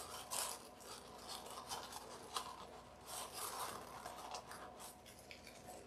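Paper coffee filters faintly rustling and crinkling as they are folded and pressed down by hand, in short irregular bursts.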